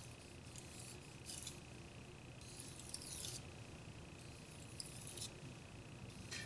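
Faint hissing scrapes of a white-steel Japanese petty knife's edge drawn across a hard 5000-grit Shapton water stone, a handful of separate strokes with short gaps between.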